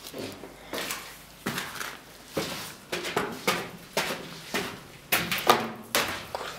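Footsteps on a steel-framed staircase with plank treads, about ten steady treads, each a sharp knock with a short hollow ring.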